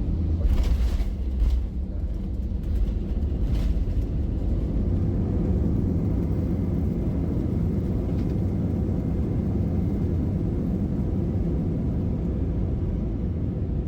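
Steady low rumble inside an Airbus A320 cabin as it rolls on the runway just after landing, with a few short rattles in the first four seconds.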